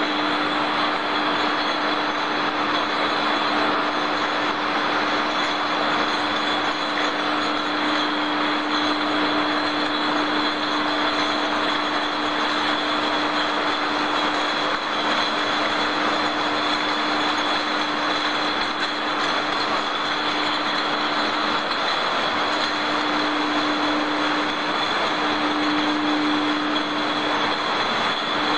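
Steady production-line machinery noise from glass-bottle conveyors: a continuous mechanical din with a constant hum and high whine, the hum dropping out briefly a few times near the end.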